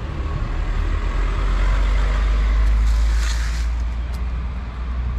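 A motor vehicle passing close by: a low rumble that swells to its loudest about three seconds in and then fades, with a short hiss near its peak.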